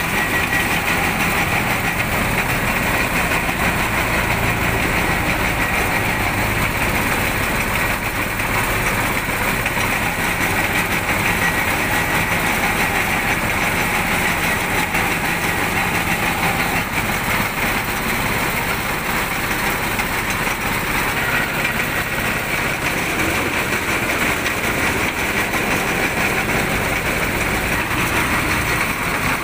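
Motorised sugarcane juice crusher running steadily while canes are fed through its rollers.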